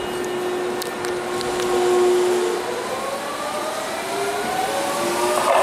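Hiroden 3900-series articulated tram pulling away from the platform. A steady hum in the first couple of seconds gives way to a whine in several tones that rise in pitch as it gathers speed.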